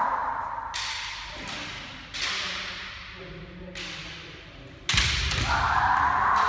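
Bamboo shinai swords cracking against each other and on kendo armour, about six sharp echoing strikes, the loudest with a heavy thud about five seconds in. A long kiai shout follows it near the end.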